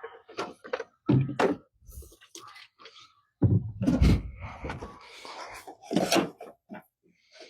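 A series of irregular knocks and clunks, the heaviest about halfway through.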